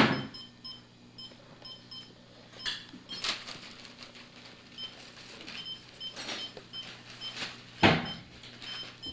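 Short high electronic beeps repeating in a steady pattern, with brief bursts of paper crinkling as a tabby kitten plays in torn wrapping and tissue paper. A sharp click comes at the very start and a loud thump near the end.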